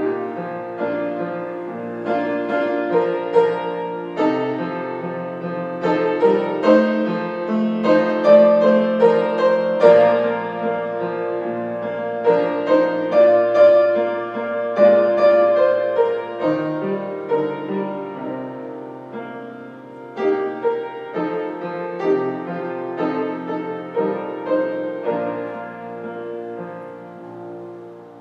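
Solo piano playing slow, sustained chords that fade away near the end.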